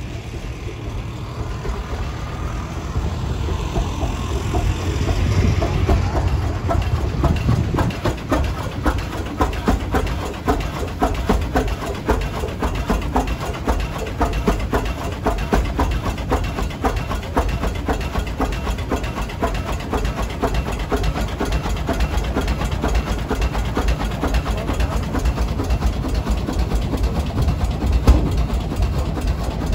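Antique heavy farm tractor engine running at a slow, even beat, its strokes coming several times a second.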